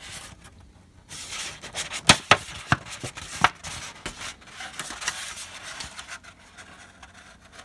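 Thin vacuum-formed styrene sail sheets handled and flexed, rubbing and crackling, with a cluster of sharp clicks and pops about two to three and a half seconds in.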